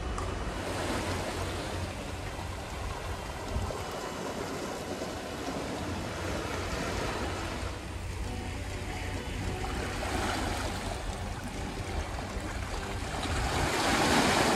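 Sea waves washing against a rocky shore, swelling and ebbing several times and loudest near the end.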